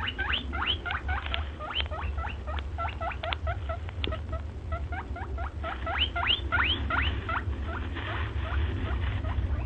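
A small animal squeaking rapidly, several short squeaks a second, each rising sharply in pitch, over a low steady hum.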